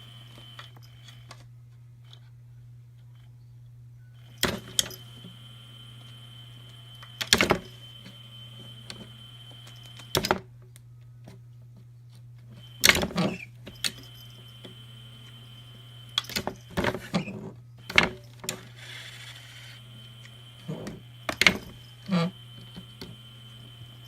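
Irregular clusters of short knocks and rattles, about ten over the stretch, some of them loud, over a steady low hum.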